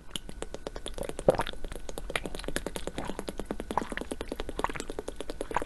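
Water bubbling: a rapid, uneven run of small bubble pops and clicks, several a second, some with short pitched blips.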